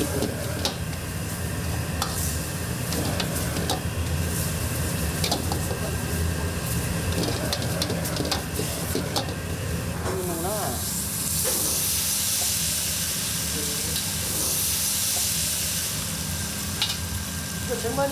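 Food frying and sizzling on a hot cooking surface, with short clinks of a utensil against it through the first half. From about ten seconds in, a louder, higher hissing sizzle lasts several seconds, over a steady low hum.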